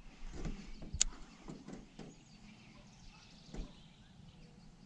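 Faint scattered knocks and clicks of fishing gear being handled in an aluminium jon boat, with one sharp click about a second in.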